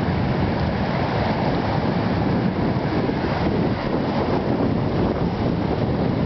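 Wind rushing across the microphone in a steady, deep buffeting, with choppy lake waves washing against the rocks of a breakwater.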